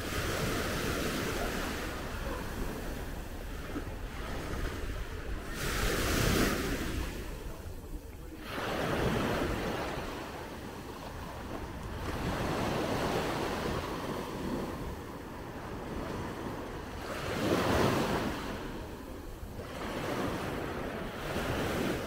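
Waves washing onto a beach, swelling and falling back every few seconds, with two louder breakers about six seconds in and near the end. Wind rumbles on the microphone.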